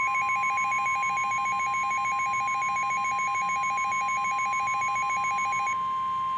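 NOAA Weather Radio 1050 Hz warning alarm tone, one steady high-pitched tone announcing a warning. A rapid alternating beep, about ten pulses a second, sounds over it and stops a little before the end.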